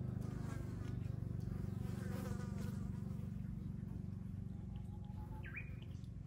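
A fly buzzing close by: a steady low buzz with a fast flutter, with a short high chirp near the end.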